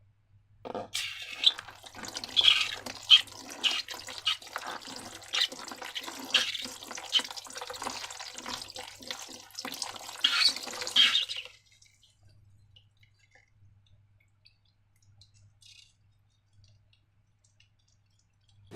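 Slime being worked by hand, a dense run of small wet squelches and crackling clicks for about ten seconds, then stopping, leaving near silence.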